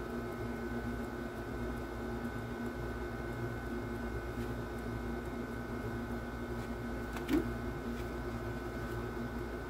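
Soft paper rustling of coloring-book pages being flipped over a steady mechanical hum that holds several fixed tones. A brief louder rustle of the books being handled comes about seven seconds in.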